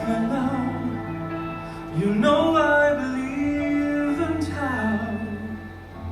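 Male singer singing a slow melody with held notes and pitch glides, over a band with a sustained bass note.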